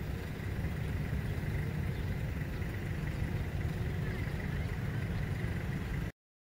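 Wind buffeting the microphone: an irregular low rumble with a faint steady high tone over it. It cuts out suddenly about six seconds in.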